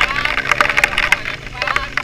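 A vehicle clattering and rattling over a rough track, with dense irregular knocks above a steady low engine hum.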